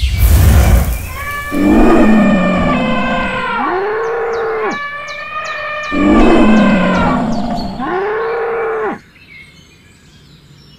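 A brief whooshing magic sound effect, then a long, loud pitched animal call sounded twice, the two about four and a half seconds apart, each ending in a lower tone that rises and falls. It stops suddenly about nine seconds in, leaving faint bird chirps.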